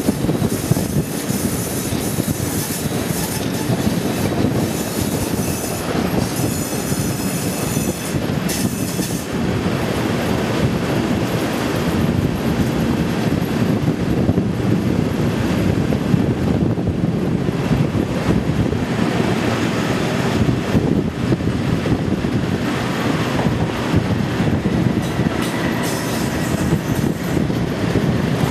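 Class 37 diesel locomotive with its English Electric V12 engine running, heard close up from the coach window right behind it, with steady wheel and rail noise as the train runs over curved track. The wheels squeal high-pitched for a few seconds about six to nine seconds in.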